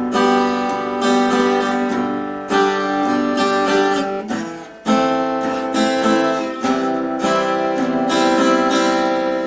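Acoustic guitar strummed through a short progression of slash chords with moving bass notes, a new chord every second or two, the last one left to ring.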